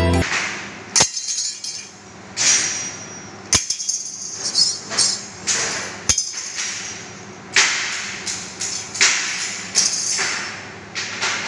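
A hand rubbing and brushing over a thin laser-cut steel sign lying on concrete, making repeated swishing scrapes. Three sharp metallic clicks fall about a second, three and a half seconds and six seconds in.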